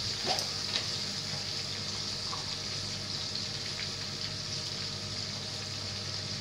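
Chopped tomatoes sizzling steadily in hot oil in a kadai, with a couple of light clicks of a utensil near the start.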